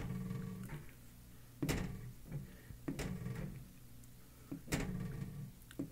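Liquid chalk marker writing on a glass mirror: about five strokes, roughly one a second, each starting with a sharp tap of the tip on the glass and followed by a short drag of the tip across it.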